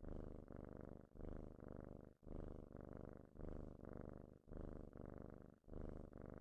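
A cat purring softly and continuously, rising and falling with each breath about once a second.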